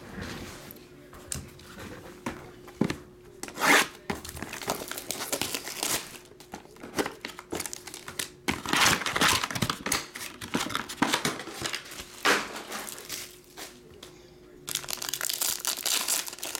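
Foil trading-card pack wrapper crinkling and tearing in several bouts as it is handled and pulled open, with a few sharp taps in the first three seconds.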